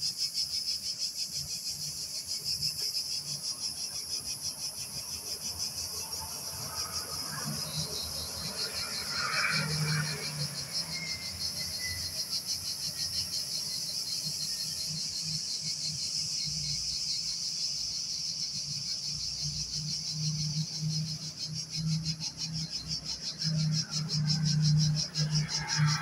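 Insects chirring in a fast, even, high-pitched pulse that never lets up, over a low hum that comes and goes and is strongest near the end.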